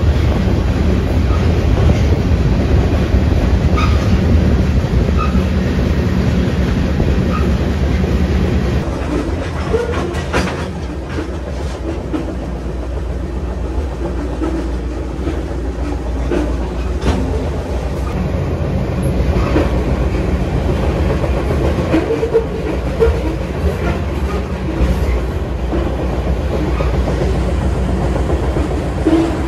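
Freight train rolling along the track, heard from aboard one of its cars: a steady low rumble of wheels on rail with scattered clacks as the wheels cross rail joints.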